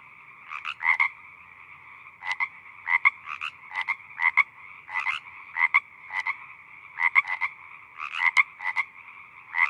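Frogs croaking: short clicking croaks in quick clusters of two or three, repeating every half second to a second, over a steady chorus of more frogs.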